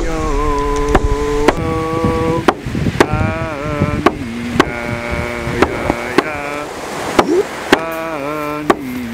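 Chanted singing over a drum struck roughly once a second, the voice holding long steady notes that sometimes slide down.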